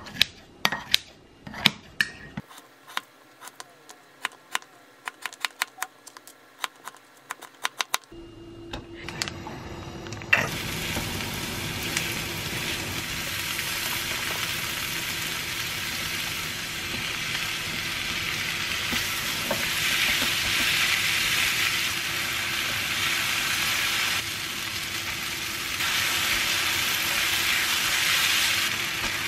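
Kitchen scissors snipping kimchi in a ceramic mug: a quick run of sharp snips for the first several seconds. About ten seconds in, diced luncheon meat and chopped green onion start sizzling in a hot wok and keep frying steadily while a silicone spatula turns them.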